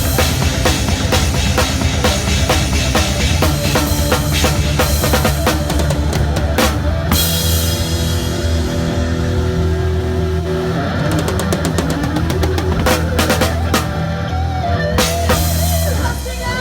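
Live rock band playing: drum kit with bass drum and cymbal hits over a heavy bass line and guitar, coming to a stop just before the end.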